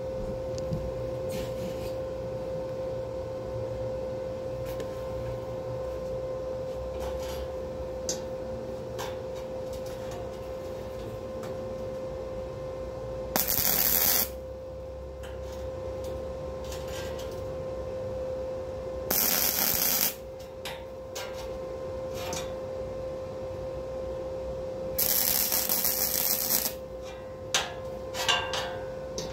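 Flux-core wire welder humming with a steady tone, broken by three short bursts of arc crackle as tack welds are laid, each a second or two long, the last one the longest.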